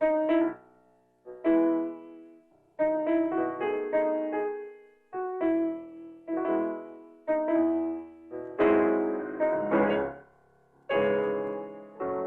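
Piano playing short phrases of notes and chords, each striking sharply and ringing away, with brief pauses between phrases.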